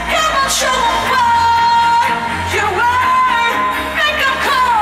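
Pop singer's live female lead vocal holding long high notes over a full band with steady bass, heard through a large concert PA from within the audience.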